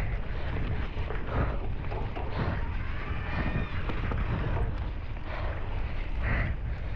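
Wind rushing over the microphone while a cyclocross bike is ridden, with a steady low rumble and scattered knocks and rattles from the bike.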